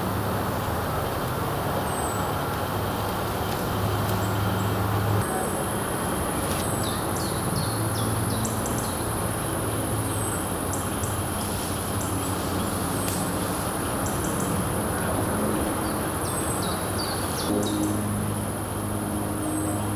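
Woodland ambience: a steady low rumble, like distant road traffic, with a small bird giving a short high chirp every couple of seconds and other birds calling now and then.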